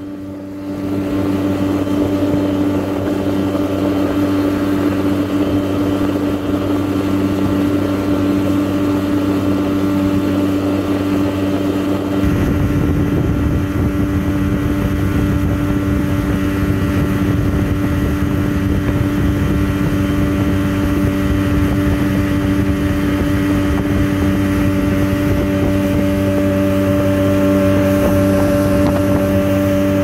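A boat's engine running steadily at an even speed, a constant hum with an unchanging pitch. About twelve seconds in, a rougher low rushing noise joins it.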